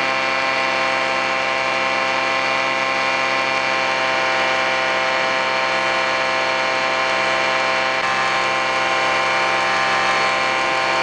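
Titan Tornado II ultralight's aircraft engine and propeller running steadily in flight, an unchanging drone with no change in power.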